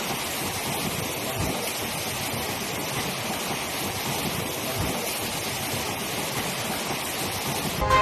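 Steady rushing of water, an even hiss with no rhythm, like heavy rain or fast-flowing floodwater.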